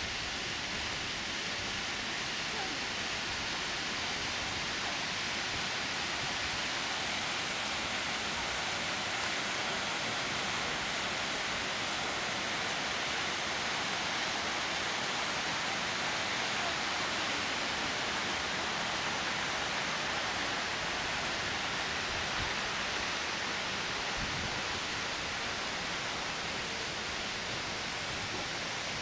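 A steady, even rushing noise, brightest in the upper range, that holds unchanged throughout.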